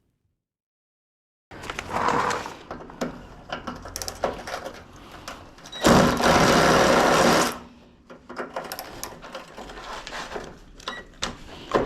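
Tools working on fasteners during a van strip-down: scattered clicks and clatter, with a power tool running steadily for about a second and a half near the middle.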